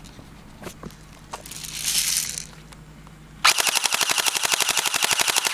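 Pulse R70 electric airsoft rifle firing one full-auto burst of about two seconds, a fast, even rattle that cuts off sharply. It is powered by an 8.4-volt, 2100 mAh NiCad RC plane battery pack, which raises the rate of fire. A brief rustle comes before the burst.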